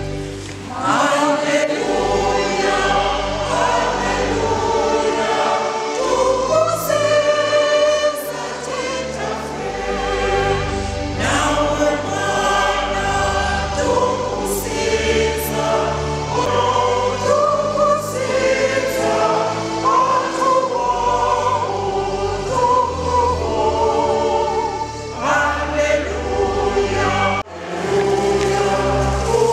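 Choir singing a gospel hymn, some held notes wavering, over a steady low accompaniment. The singing breaks off briefly near the end, then resumes.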